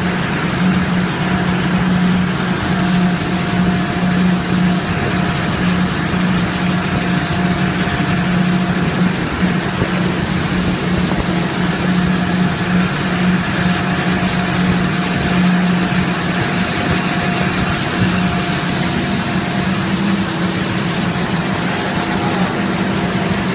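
A DP–WR-85 plastic film recycling line with shredder and pelletizer running steadily: a loud, even machine drone with a strong low hum and a fainter higher tone that comes and goes.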